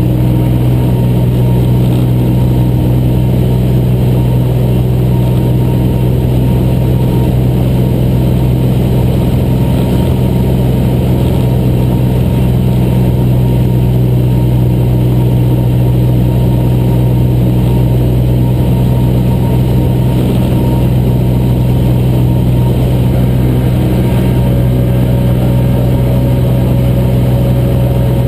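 Cessna 175's piston engine and propeller droning steadily in flight, heard inside the cabin as a constant low hum with a faint higher tone coming in near the end.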